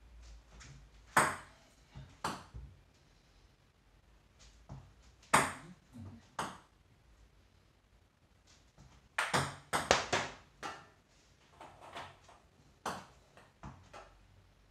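Plastic ping-pong balls clicking during left sidespin table tennis serves: sharp single clicks of ball on paddle and table, spaced a second or more apart, with a quick run of clicks about nine to eleven seconds in.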